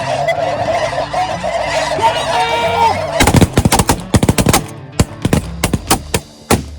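A large flock of snow geese calling in a dense, continuous clamour. About three seconds in, a volley of shotgun fire breaks out: a rapid burst of overlapping shots, then scattered single shots.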